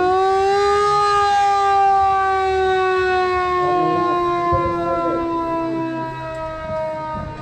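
A siren sounding one long, unbroken tone that rises slightly, then slowly sinks in pitch and fades a little near the end.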